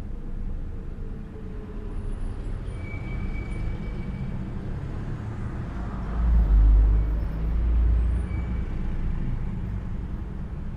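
A steady low mechanical rumble with a humming undertone. It swells louder and deeper for about two seconds starting some six seconds in, and a brief high squeal comes about three seconds in.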